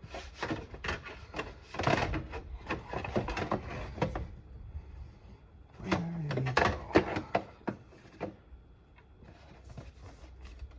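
Hand work on metal car parts: irregular clicks, clinks and knocks of a nut, bolt and tools being handled and fished for in a tight space. The sounds come in busy runs, with a lull about four seconds in and again toward the end.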